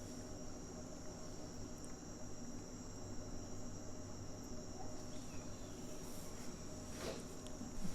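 A steady high-pitched whine over a low background hum, with one faint click about seven seconds in.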